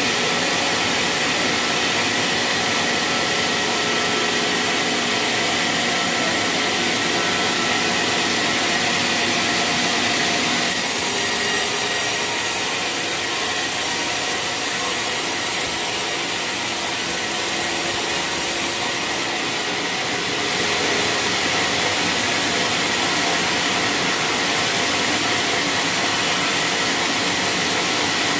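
Sawmill saw running steadily, cutting waru (hibiscus) wood. A harsher, higher hiss comes in about eleven seconds in and lasts about eight seconds.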